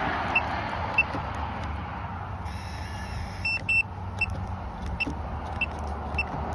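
Latch smart lock's electronic beeper giving a series of short, high beeps about every half second, with a pair of longer beeps about halfway through, as the lock works through a code change.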